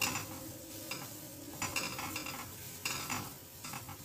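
Wooden spatula stirring and scraping green curry paste around a ceramic-lined frying pan, in strokes roughly once a second, over a faint sizzle of the paste frying in oil.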